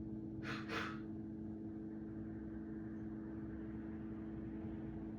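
Two quick, breathy puffs of a person's breath about half a second in, over a steady low hum.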